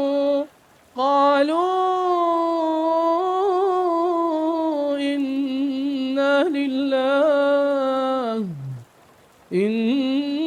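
A male reciter chanting the Quran in melodic tajweed recitation. A held note gives way to a brief pause, then a long drawn-out phrase that wavers and falls in pitch at its end, a short pause, and the voice resumes near the end.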